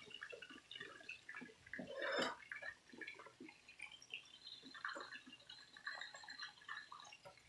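Chicken pieces frying in a pot of hot oil: faint, irregular crackling and popping, a little louder about two seconds in.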